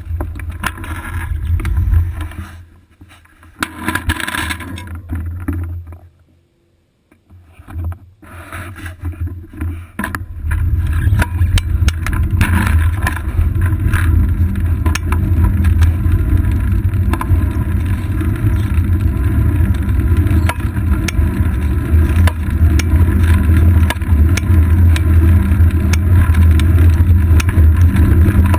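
Riding noise picked up by a GoPro Hero 2 on a moving road bike's seat post: a low rumble of wind and road vibration with scattered light ticks. The rumble dips to near quiet around six to eight seconds in, then comes back steady and louder from about ten seconds on.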